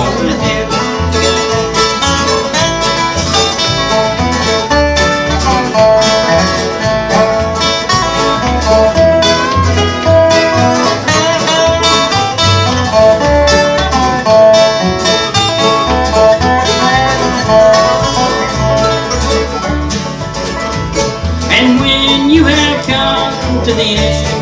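Bluegrass band playing an instrumental break on acoustic guitar, five-string banjo, mandolin, upright bass and resonator guitar, with the resonator guitar taking the lead melody midway through.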